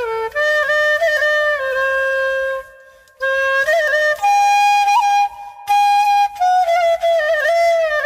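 Solo flute playing a slow, ornamented melody: long held notes bent in pitch and decorated with quick grace notes, with a short break a little under three seconds in.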